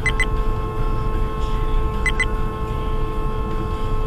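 Car horn held down in one long, continuous angry honk that begins right at the start, over the car's road noise. A short double beep sounds twice, about two seconds apart.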